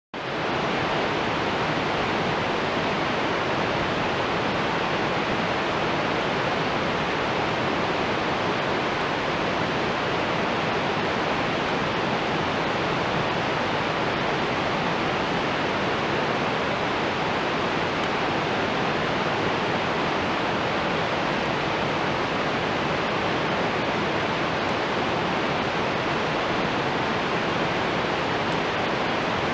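Steady rushing of river water, an even unbroken noise with no changes in level.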